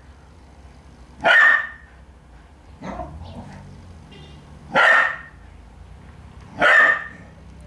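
Terrier puppy barking at a cat to get it to play: three loud, sharp single barks a couple of seconds apart, with a fainter bark between the first two.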